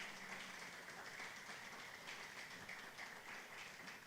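Light audience applause, many scattered hand claps at a low, fairly even level.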